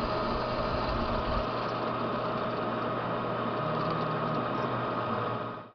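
Milling machine driving a hole saw through the end of a chromoly steel tube to notch it: a steady machine noise with a few constant high tones, which cuts off suddenly near the end.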